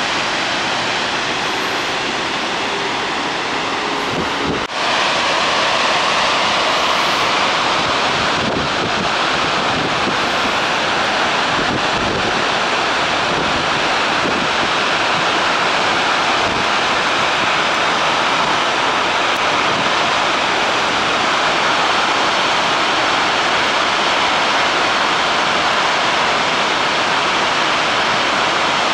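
Kawaji arch dam discharging floodwater: a steady, loud rush of water pouring from the dam and crashing into the river below, with a brief dip about four and a half seconds in.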